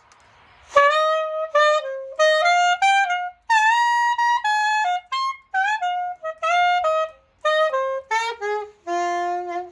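Curved soprano saxophone fitted with a Van Doren V16 mouthpiece, playing an unaccompanied melodic phrase of short, separate notes after a breath, ending on a held lower note.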